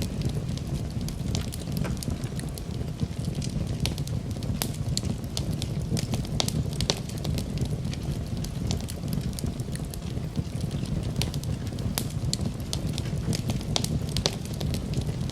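Campfire burning, with frequent sharp, irregular crackles and pops over a steady low rumble of the flames.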